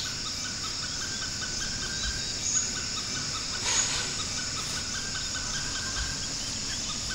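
Rainforest insect chorus: a steady high-pitched drone with short chirps repeating over it, and one brief noise about three and a half seconds in.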